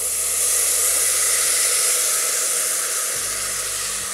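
Finely chopped tomatoes poured into a hot pot of oil, butter and frying aromatics, sizzling loudly as their juice hits the hot fat and flashes to steam, easing slightly toward the end.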